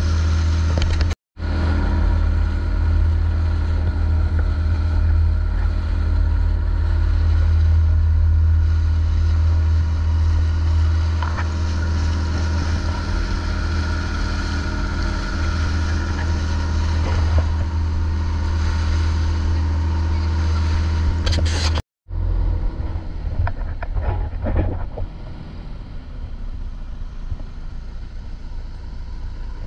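Long-tail boat engine running steadily under way, a deep hum with a hiss of rushing water. The sound drops out briefly twice, about a second in and again near 22 seconds; after the second break the engine is quieter.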